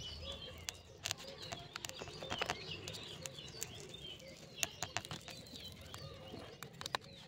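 A knife cutting through set coconut barfi, giving scattered light clicks and taps as the blade meets the steel plate underneath. Small birds chirp faintly throughout.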